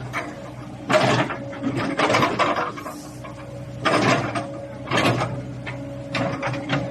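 Komatsu PC60-7 excavator running, its engine giving a steady hum, broken about six times by short sharp noise bursts a second or so apart.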